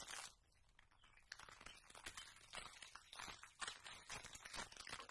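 Near silence, with faint scattered soft rustles and ticks.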